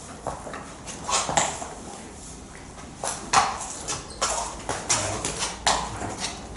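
A series of irregular sharp clicks and knocks with brief rustling, starting about a second in and coming more often in the second half.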